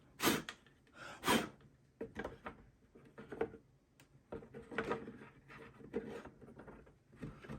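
Handling noises as a cut-down dummy battery block is pushed and fitted into a battery compartment: a string of short knocks and clicks with some rubbing and scraping.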